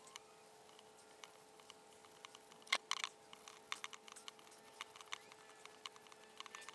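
Rubber CV joint boot being hand-sanded with 80-grit sandpaper: faint, irregular scratchy scuffs and small clicks, the strongest a little under three seconds in, over a faint steady hum.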